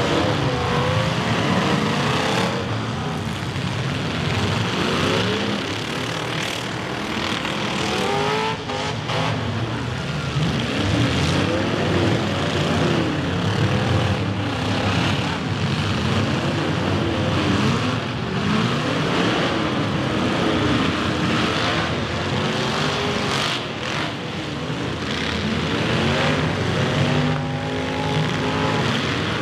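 Several full-size demolition derby cars running hard, their engines revving up and down over one another, with loud crashes now and then as the cars ram into each other.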